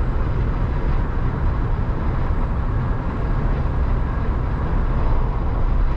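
Cabin noise inside a Jeep Wrangler JK hardtop at highway speed: a steady low rumble of tyre, road and wind noise with the engine under it, heard through headliners and floor sound deadening. The owner picks out only a light-bar whistle and a little air leaking past a roof seal.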